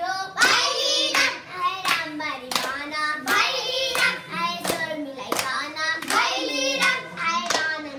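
A group of girls singing a Nepali Deusi-Bhailo festival song together, clapping their hands on a steady beat.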